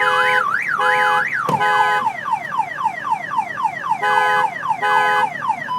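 Car alarm siren going off, cycling through its tones: a rapid up-and-down warble alternating with short steady blasts, then a string of quickly falling sweeps at about four a second, and the steady blasts again near the end. A sharp click or thump sounds about a second and a half in.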